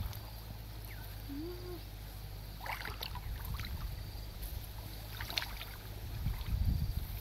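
Muddy ditch water sloshing and splashing as hands grope in the mud of the bank, in short bouts about 3 s and 5 s in, and busier near the end, over a steady low rumble.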